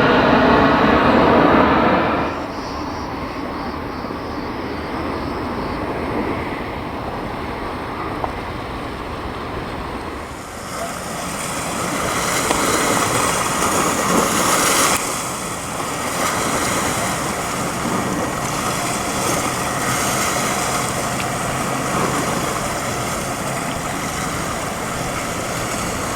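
Aircraft engine noise that drops away abruptly about two seconds in, followed by a steady rushing of wind and surf that swells for a few seconds in the middle.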